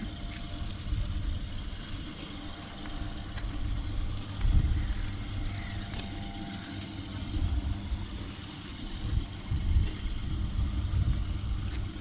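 Wind rumbling on the microphone in uneven gusts, over a steady low machine hum.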